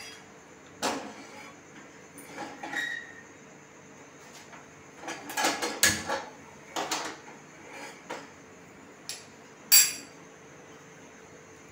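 Cookware clattering: a frying pan knocked down onto a gas stove's grate and small bowls clinking on a plate, in a string of separate knocks and clinks, the loudest near the end.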